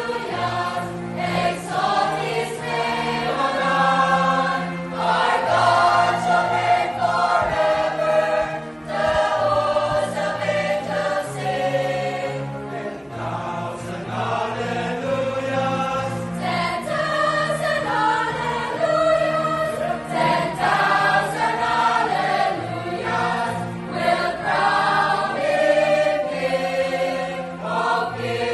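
Mixed choir of children, girls and young men singing a Christian worship song in parts, with low men's notes under the higher voices.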